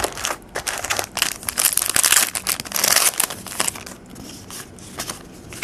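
Trading-card pack wrapper crinkling and tearing open: a quick run of crackles, loudest in the middle, dying down about four seconds in.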